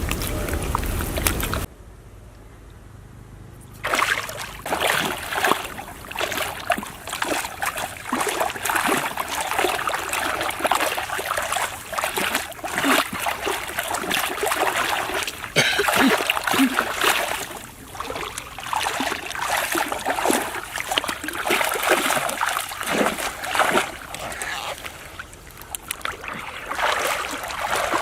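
Water splashing and sloshing in irregular bursts, with a quieter lull about two seconds in.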